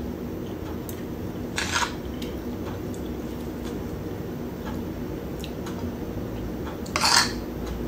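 Fork and spoon scraping against a plate and dish while eating, two short scrapes about two seconds in and near the end, over a steady low hum.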